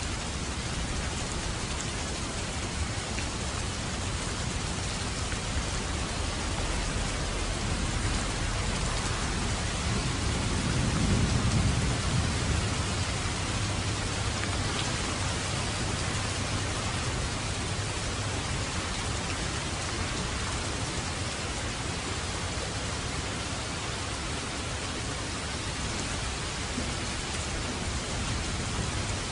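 Steady rain falling, with a low rumble of thunder swelling and fading about a third of the way in.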